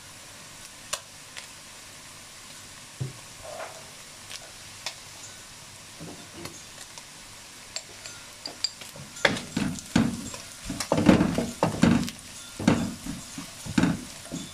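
Beef strips sizzling faintly in a nonstick wok. From about nine seconds in, a wooden spatula stirs and scrapes them in a quick run of loud strokes against the pan.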